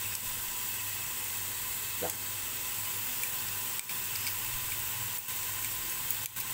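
Chopped red onion frying gently in hot olive oil in a stainless steel pot: a soft, steady sizzle as the onion starts to cook.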